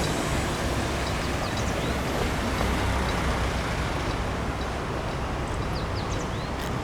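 Steady low rumble of a vehicle running past, easing off slightly, with a few faint bird chirps.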